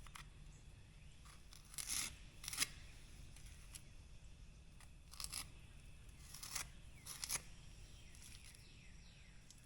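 A few short, faint scrapes and clicks, about five spread over several seconds, from working a Sika acrylic sealant into mortar recesses.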